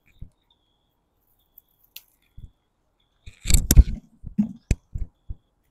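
Handling noises from picking bitter gourds off the vine: a burst of rustling and snapping about three and a half seconds in, followed by a few short soft knocks.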